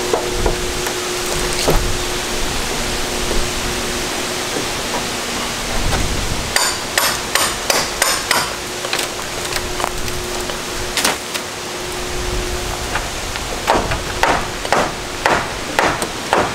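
Hand hammer driving nails into wooden rafters. There is a quick run of about half a dozen blows midway, a single blow a few seconds later, then a steady series of about two blows a second near the end.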